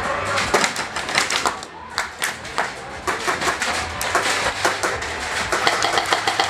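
Airsoft guns firing in sharp clicks, with a fast, even string of shots starting about a second before the end.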